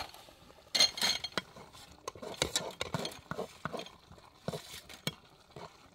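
Metal ladle stirring in a cooking pot, scraping and knocking against its sides in irregular clinks and taps, louder about a second in.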